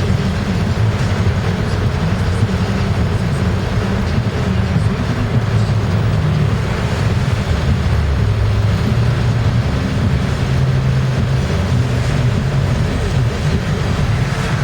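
Steady road and engine drone inside a moving car's cabin at highway speed, tyres running on a wet road.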